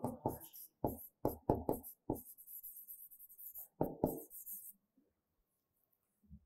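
Background music with a quick percussive beat that stops about five seconds in, leaving near silence.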